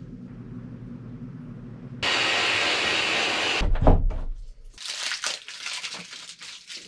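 A loud steady hiss that starts suddenly about two seconds in and cuts off a second and a half later, followed by a heavy thump as a closet door is opened by its knob, then small clicks and rustling as things are handled at the closet.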